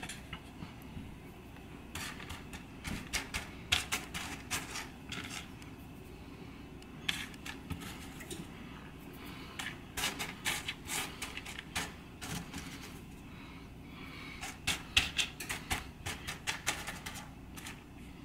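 Dry pinto beans clicking and rattling against each other as fingers push them across a mat, sorting them by hand for stones and bad beans. The clicks come in several quick spells with short pauses between.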